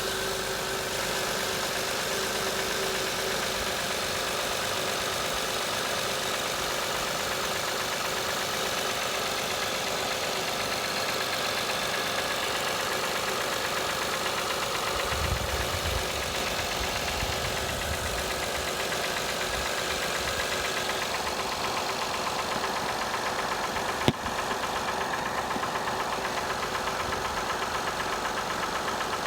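2005 Acura TL's 3.2-litre V6 engine idling steadily with a knocking noise, a knock that shows up at 172,300 miles. A single sharp click comes about two-thirds of the way in.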